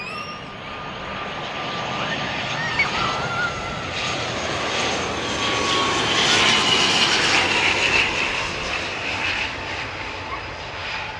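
Jet airliner passing low overhead on its landing approach: the engine roar builds to a peak about six to eight seconds in and then fades, with a high whine that slides slowly down in pitch as the aircraft goes by.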